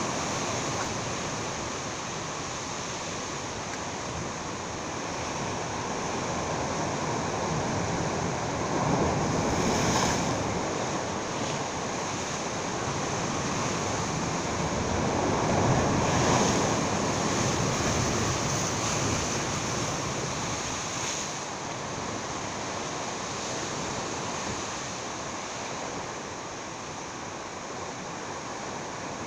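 Sea surf washing and breaking against breakwater rocks, a steady rush that swells louder twice, about nine and sixteen seconds in.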